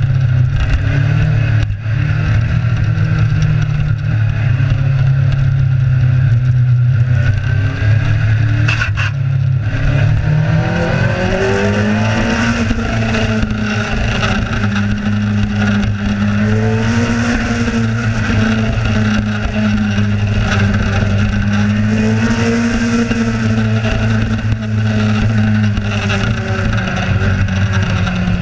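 Kawasaki Z1000 motorcycle engine running under way at a steady pace; about ten seconds in it revs up and then holds the higher revs, rising and falling slightly.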